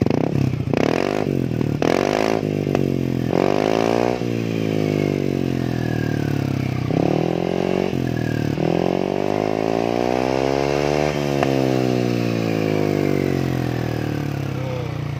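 Yamaha NMAX scooter's single-cylinder engine revved through its stock muffler, which has been gutted and repacked with white glass wool for a deeper, bassy note. Several short throttle blips, then a longer rev that climbs for a few seconds and falls back toward idle near the end.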